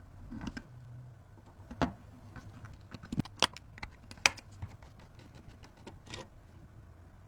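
Scattered sharp clicks and taps of computer parts being handled during a PC build: about half a dozen separate knocks, the loudest a little past four seconds in.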